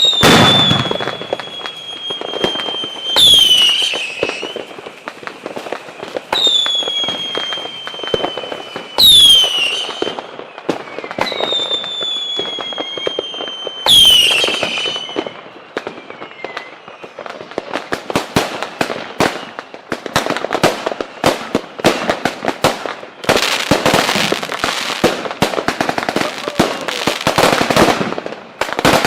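Fireworks: whistling fireworks go off one after another about every three seconds, each a high whistle sliding slowly down in pitch, with loud bangs. From about halfway the whistles stop and a dense crackle of rapid firecracker pops takes over, heaviest near the end.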